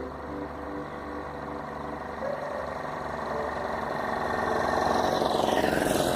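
A motor vehicle on a road, growing steadily louder as it approaches and passing close by near the end.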